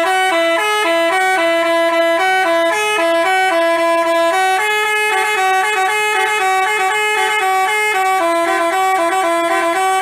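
Basuri-type telolet bus horn playing a quick melody, a run of short notes stepping up and down in pitch.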